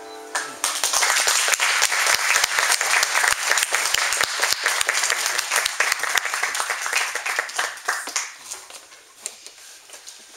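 Audience applauding, a dense patter of many hands starting about half a second in as the last held note of the violin and piano piece fades, then thinning out about eight seconds in.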